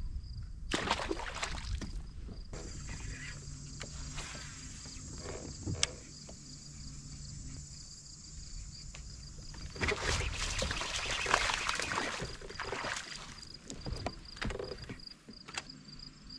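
Sounds of a kayak on the water: water sloshing and rushing noise in bursts, with a few sharp clicks and knocks from gear on the hull, over a faint steady high whine.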